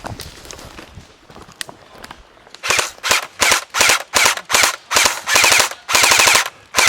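Airsoft electric gun firing on full auto in a string of short bursts, starting about two and a half seconds in. Each burst is a fast rattle of shots over the whine of the gearbox motor.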